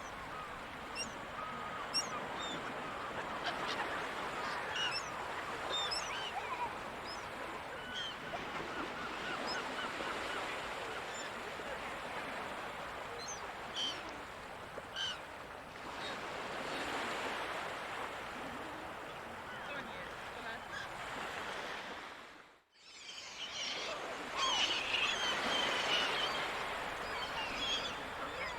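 Seagulls calling over and over above a steady wash of background noise. About three-quarters of the way through the sound cuts out abruptly for a moment, then the gulls come back louder and busier.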